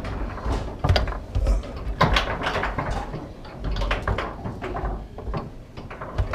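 Foosball table in play: a rapid, irregular run of hard clacks and knocks as the ball strikes the plastic men and the table walls and the rods bang in their bearings.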